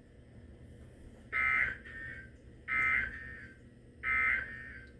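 EAS/SAME end-of-message data tones from a NOAA Weather Radio broadcast: three short buzzing digital bursts, evenly spaced about a second and a half apart. They mark the end of the severe thunderstorm warning message.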